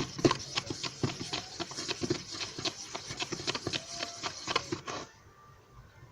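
Homemade flour dough being worked and pulled loose from its bowl: a rapid, irregular run of sticky clicks and smacks that stops about five seconds in.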